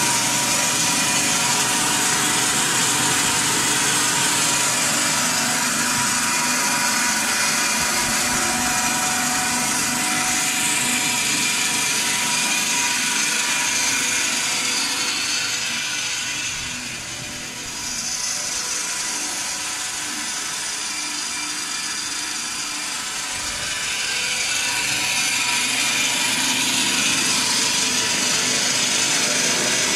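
Continuous seasoning machine running: a steady mechanical whir of motors and a rotating stainless steel flavoring drum, with several steady motor tones over a hiss. The level dips briefly a little past halfway, then comes back.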